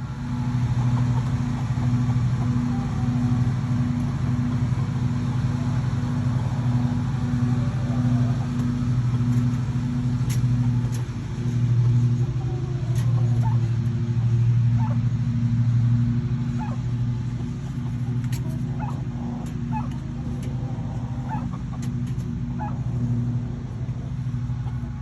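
A steady low motor hum with a slight pulsing, with short faint chirps and clicks over it from about halfway in.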